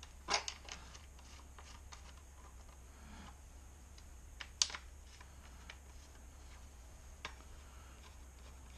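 Small scattered clicks and taps of a metal throttle cable bracket and engine parts being handled by hand, the sharpest click about four and a half seconds in. A faint steady low hum lies underneath.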